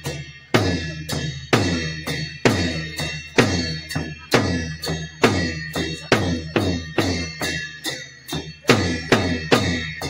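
Dance accompaniment of a large drum and cymbals struck together in a steady beat, a heavy stroke about once a second with lighter strokes between, each stroke ringing on.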